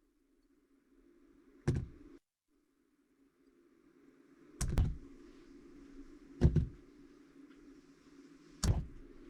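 Sharp knocks and clacks from RC truck wheels and tires being handled and set down on a work surface while the tires are mounted: four short hits about two seconds apart, the third the loudest, over a low steady hum. The sound cuts to dead silence twice.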